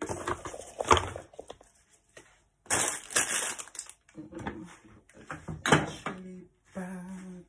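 Kitchen things being handled and put away: a glass jar knocking and clinking and a plastic bag rustling, in a series of short, sharp clatters.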